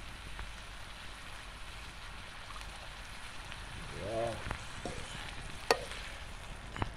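Chiton curry sizzling steadily in a metal pan over a wood fire. Near the end, a metal spoon stirring it clicks sharply against the pan a few times.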